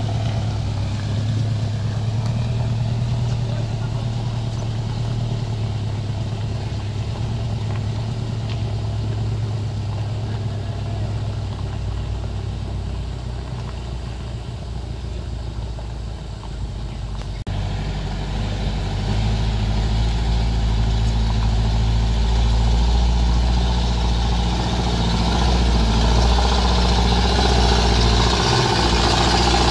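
Truck engines running on a steep hill climb, a steady low drone; about two-thirds of the way through the sound changes abruptly to a louder, deeper engine with growing noise.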